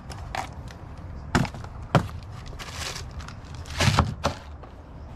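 Car suspension parts being set down on a worktable and cardboard boxes: several separate knocks and thuds, with a short plastic-bag rustle about halfway through.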